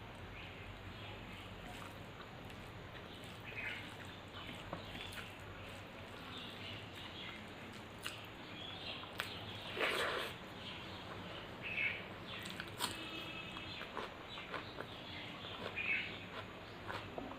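A person eating close to the microphone: irregular chewing and wet mouth smacks and clicks, with one louder, longer noise about ten seconds in.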